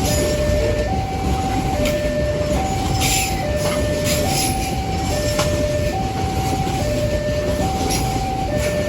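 A long Babaranjang coal train rolling past with a heavy, steady rumble, while an electronic level-crossing alarm alternates between a higher and a lower tone, each held just under a second. Occasional sharp clacks from the wagons come through.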